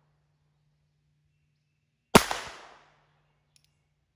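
A single shot from a North American Arms .22 mini revolver: one sharp crack about two seconds in that rings out and fades within about half a second. A faint click follows about a second and a half later.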